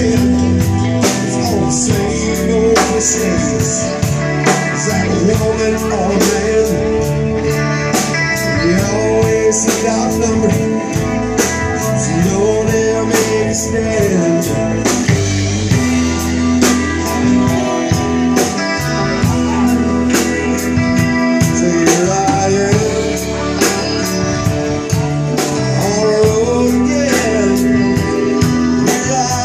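Live rock band playing: a man singing lead vocals over electric guitar and a drum kit keeping a steady beat.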